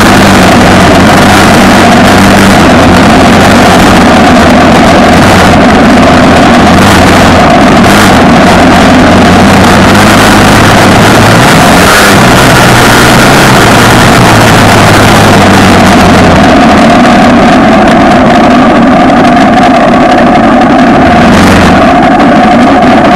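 Off-road vehicle's engine running loud and steady while under way on a trail, its pitch stepping up and down a little with the throttle.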